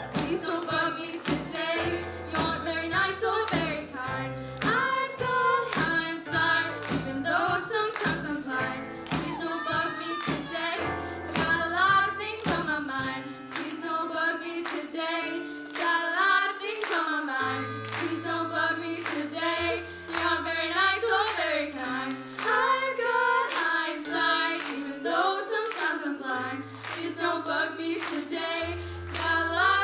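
Live rock band with young voices singing together over held electric bass notes, guitars and drums. Hand claps keep a steady beat, about two a second.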